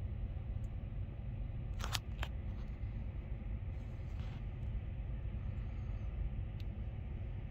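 Steady low outdoor rumble, with two sharp clicks from handling the camera about two seconds in.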